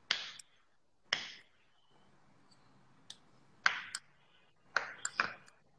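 About five short, sharp scrapes and taps from handling food and utensils on a kitchen counter, with silence between them.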